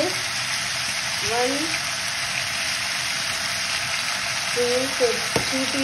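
Chicken pieces frying in hot oil in a metal pot, a steady sizzle.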